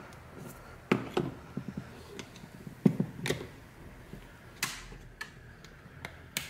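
Flat-blade screwdriver prying at the plastic housing of a Rode NT-USB Mini microphone, with sharp clicks and knocks at uneven intervals as the tool tip and plastic parts snap and tap.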